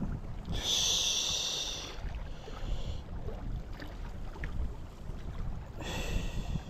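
Wind buffeting the microphone, a steady low rumble, broken twice by a short high-pitched sound of several steady tones, once about half a second in and again near the end.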